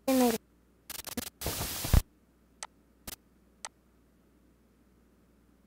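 Playback of a purported EVP recording: a brief, distorted voice-like sound that falls in pitch at the start, then about a second of crackling static-like noise bursts, three sharp clicks, and low hiss.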